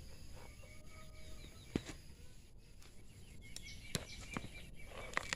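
Faint outdoor background with a few sharp clicks, one about two seconds in, one near four seconds and several close together near the end. Faint thin chirping tones come and go throughout.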